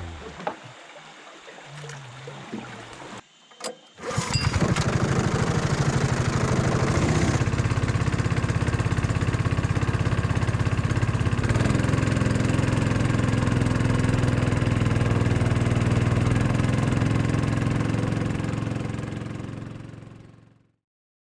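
A small engine starts abruptly about four seconds in and runs steadily with a fast, even beat, then fades out near the end.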